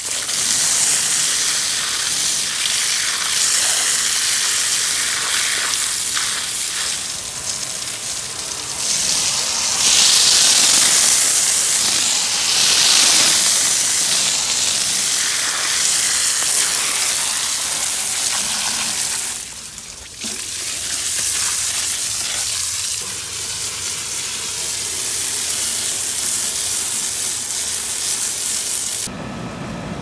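Garden hose spray hitting an air-conditioner condenser coil: a loud, steady hiss of water spattering on the metal fins as the clogged coil is washed clean. The spray drops away briefly about two-thirds of the way through, then stops abruptly about a second before the end.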